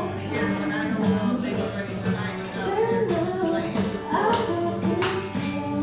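A woman singing a song, accompanied by acoustic guitar and a drum.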